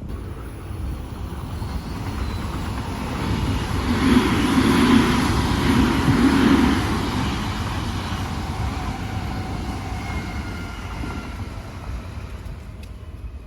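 Odakyu Line electric train passing by: running noise and a low rumble build to a peak about four to six seconds in, then fade away as it moves off.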